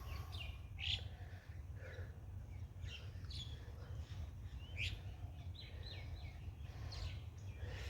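Small birds chirping, with many short calls scattered throughout, over a steady low rumble.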